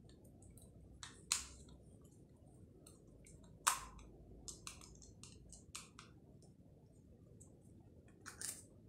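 Small screwdriver working the screws out of a plastic mains plug to open it: irregular faint clicks and ticks of the metal tip and plastic, with sharper clicks about a second in, about four seconds in (the loudest) and near the end.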